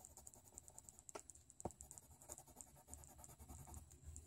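Faint scratching of a light blue coloured pencil stroking over paper, with a couple of soft ticks just after a second in.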